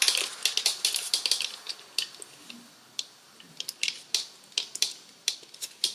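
Irregular sharp plastic clicks and taps from a Native Instruments Maschine Mk3 controller being handled as a freshly refitted encoder and its cap are checked, bunched at the start and again near the end with a lull in the middle.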